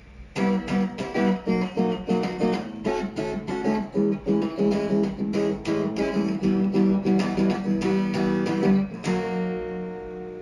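Electric guitar played through a VOX VT40X modelling amp: a quick riff of picked notes, ending on a struck chord left to ring and fade.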